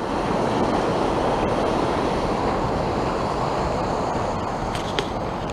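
Steady rush of a mountain creek flowing below the trail, easing off slightly near the end, with a short click near the end.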